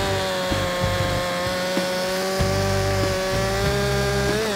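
Two-stroke gasoline chainsaw held at full throttle, its engine at a steady high pitch; right at the end the pitch falls as the throttle is let off.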